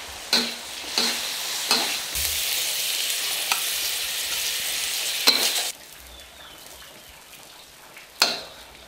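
Bamboo shoots and cured pork sizzling in a wok over a wood fire, with a metal spatula knocking and scraping against the wok. Three clanks come in the first two seconds, then a steady loud sizzle that stops sharply after about five and a half seconds, and one more sharp clank near the end.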